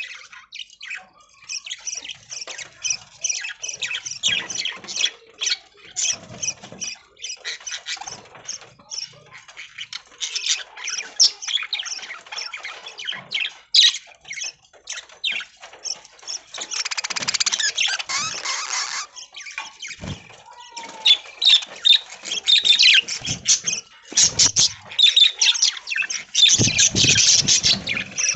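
A flock of budgerigars chirping and chattering continuously in quick, overlapping high calls, with a denser burst of chatter partway through and another near the end.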